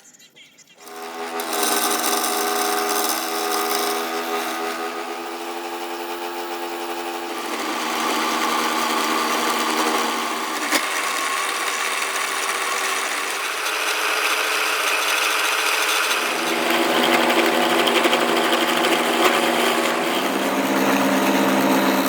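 Wood lathe running with a tool working a spinning piece of very hard, dense wood and resin. It starts about a second in, and its hum changes pitch several times over the stretch.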